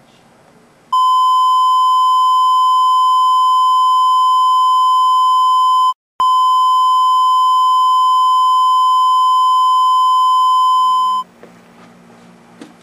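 Loud, steady test-tone beep of the kind played with a television colour-bar test pattern. It starts about a second in, cuts out for an instant with a click near the middle, and stops about a second and a half before the end.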